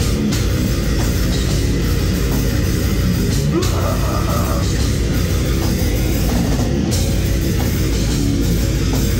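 Live grindcore band playing loud: heavily distorted electric guitar over a fast drum kit, dense and unbroken.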